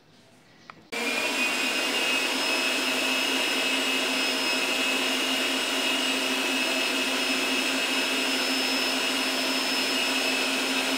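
Electric stand mixer switched on about a second in, with a small click just before, then running at a steady speed with a constant motor whine as it beats butter, cream, sugar and egg yolks into a cake batter.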